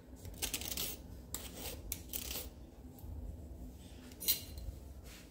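A few short scraping and rubbing sounds as spoonfuls of thick strained yogurt are scraped off into a glass mixing bowl of chopped vegetables and spices.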